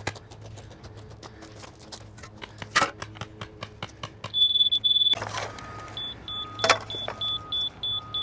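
Laser-level receiver beeping while a slab form is checked for height: a steady high tone about four seconds in, then short repeated beeps. Faint quick ticking and a couple of sharp knocks come before it.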